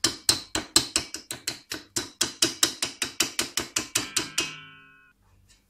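Metal mixer whisk knocked rapidly and repeatedly against the rim of the mixing bowl, about five or six sharp taps a second, to shake off clinging batter. The tapping stops near the end and the last knock rings on briefly.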